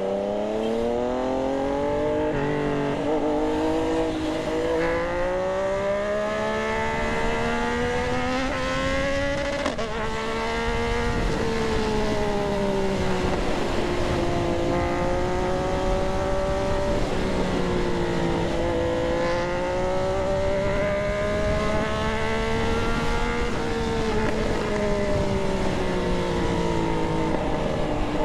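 Yamaha MT-09's three-cylinder engine pulling hard through the gears, its pitch climbing and dropping back at each upshift, then running on at a steady road speed with the engine note slowly falling and rising as the throttle eases and opens.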